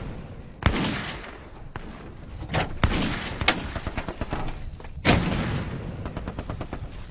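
Gunfire: a few heavy shots or blasts, each with a trailing rumble, about a second in, near three seconds and at about five seconds, then a quick rapid burst like a machine gun.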